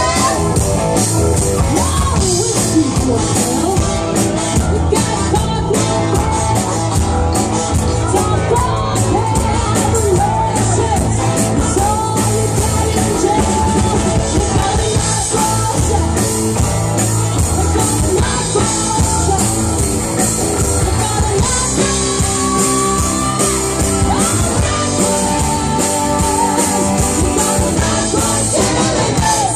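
Live rock band playing: several women singing together over bass guitar and drums, with a steady beat.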